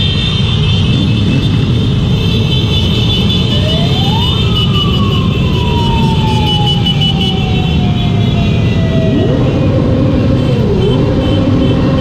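A siren winds up quickly about four seconds in and then slides slowly down in pitch for about five seconds, followed near the end by a faster wail rising and falling about once a second. Underneath is a steady loud rumble of motorcycle engines and road noise from riding a Yamaha XMax 400 scooter in a motorcycle convoy.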